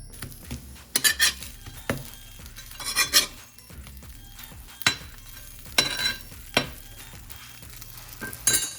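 Dishes and utensils clinking and clattering as they are handled, in scattered sharp knocks, the loudest about a second in and about three seconds in.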